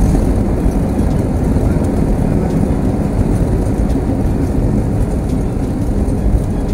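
Airbus A320 cabin noise during the landing roll just after touchdown: a loud, steady low rumble.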